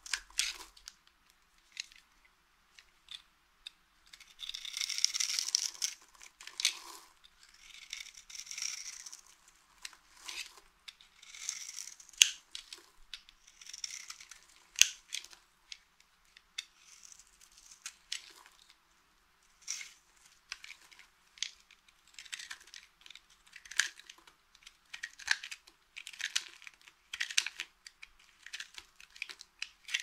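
Utility knife blade shaving curls and flakes off a dry bar of soap in repeated scraping strokes, with many short, sharp cracks as bits of soap break away.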